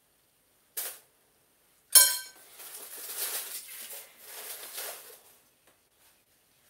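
Kitchen handling sounds of dishing up: a brief knock, then a sharp ringing clink of a utensil on dishware about two seconds in, followed by about three seconds of uneven scraping and rustling.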